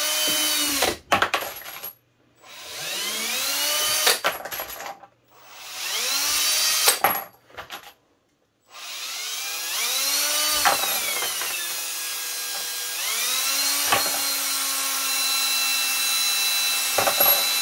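A cordless drill spins a nylon brush inside the necks of rifle brass cases. The motor whines up and winds down in short runs a few seconds apart, then runs longer with its pitch dipping and rising as the trigger is worked. Brass cases clink sharply now and then as they are set down in a metal pan.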